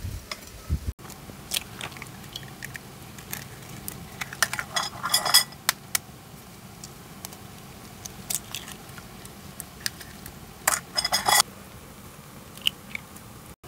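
Eggs being cracked into a frying pan of hot oil over a wood fire: scattered sharp taps of shell, with two bursts of spattering crackle from the oil, about five seconds in and again near eleven, over a low steady hiss.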